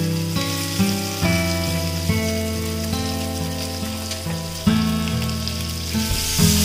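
Oil sizzling steadily around spice-coated hard-boiled eggs frying in a grill pan. Slow background music with held notes plays under it.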